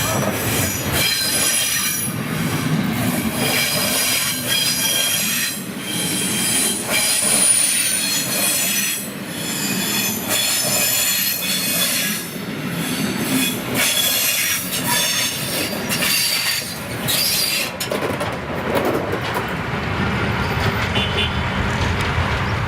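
Brakes of a train hauled by steam locomotive 18 201 squealing at length as it slows, several high tones that waver and come and go over the rumble of the running train. The squeal dies away about eighteen seconds in, leaving the lower rumble.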